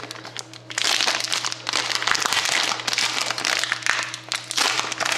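Foil trading-card pack wrapper being peeled open and crinkled by hand, a continuous crackly rustle that eases briefly just after the start.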